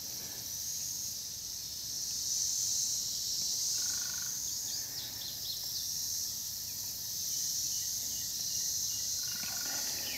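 Insect chorus: a high, steady trilling that swells and fades every few seconds. A short steady note sounds about four seconds in and again near the end.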